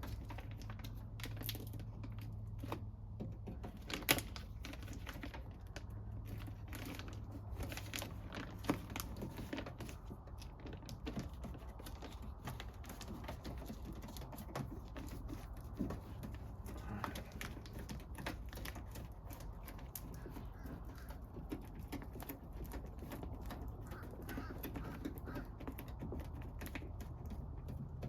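Scattered light clicks and crinkling of a plastic door vapour barrier being pressed back onto a car door's inner panel, with one sharper click about four seconds in.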